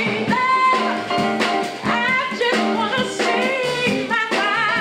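A woman singing a jazz song live, backed by a small band with guitar, holding notes with vibrato, most plainly near the end.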